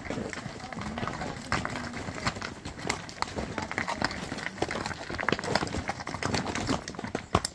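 Horses walking on a rocky trail: hooves clopping irregularly on loose stones, a dense run of knocks from several animals at once.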